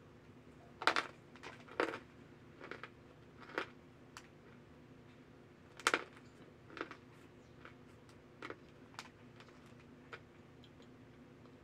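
Chunks of cornstarch being bitten and chewed close to the microphone: a series of dry, crisp crunches at an uneven pace, loudest in the first six seconds, over a faint steady hum.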